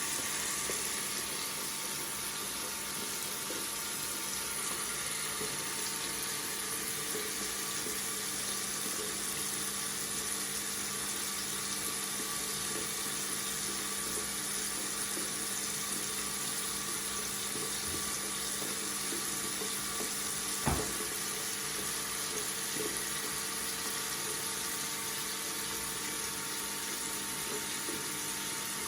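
Water tap running in a steady stream into a sink, with a single brief click about two-thirds of the way through.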